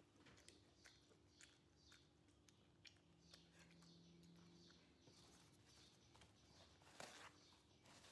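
Faint small clicks of a cat licking and smacking its lips after a syringe of medicine, with a short cloth rustle about seven seconds in.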